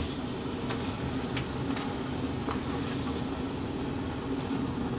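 A steady low hum in a kitchen, with a few faint ticks from a wok of hot oil that has just been emptied of fried fish.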